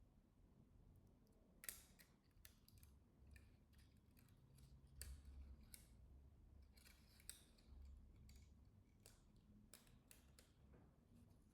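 Faint, scattered clicks and crinkles of thin plastic protective film being peeled and handled on a replacement smartphone screen.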